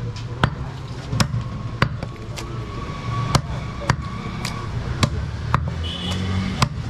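Heavy meat cleaver chopping goat ribs and chest on a wooden log chopping block: about ten sharp thuds, roughly one every half second to second, over a steady low background rumble.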